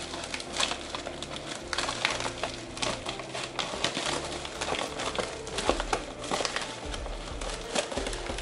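Scissors snipping through a plastic mailer bag, with the bag's plastic film crinkling between the cuts.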